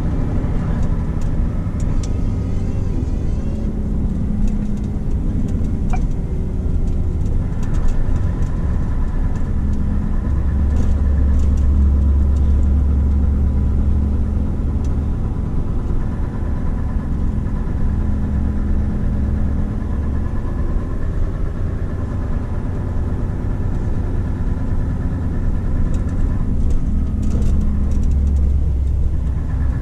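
Scania R520's V8 diesel engine running while the truck drives, heard from inside the cab as a steady low drone. The drone swells louder about a third of the way in and again near the end.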